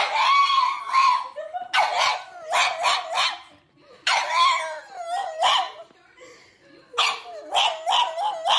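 Small black dog howling and yowling in a series of wavering, high-pitched calls, some drawn out and some short and quick, with brief pauses between.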